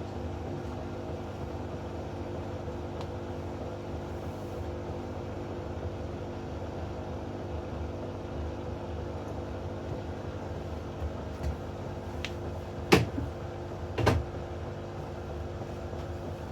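Hoover inverter washing machine turning its drum with a steady motor hum while it tries to balance the load before the spin. Two loud clunks from the drum come a little after the middle.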